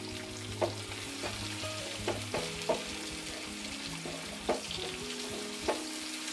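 Sliced onion sizzling in hot oil with dried red chillies and cumin seeds, frying for a tempering (baghar), stirred with a spatula that knocks against the pan several times.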